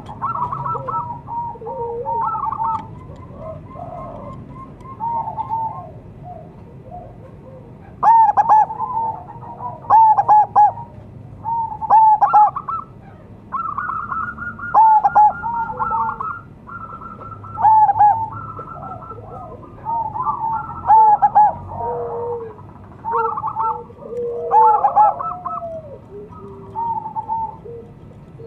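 Zebra doves (perkutut) cooing: phrases of rapid staccato coos repeated every couple of seconds, louder from about eight seconds in, with calls sometimes overlapping.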